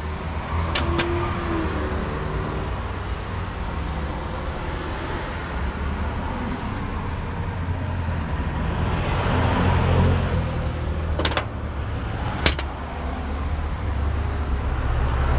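Semi-truck's diesel engine idling with a steady low rumble. A few sharp clicks sound near the end.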